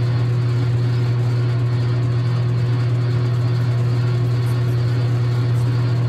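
Logan 6560 metal lathe running steadily, its spindle and chuck turning nylon bar stock, with a loud, even hum.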